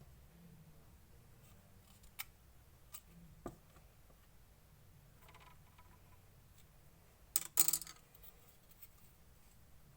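Clear slime being handled and mixed: a few sharp clicks spaced out over several seconds, a soft rustle about halfway through, then a loud quick cluster of clicks about three-quarters of the way in.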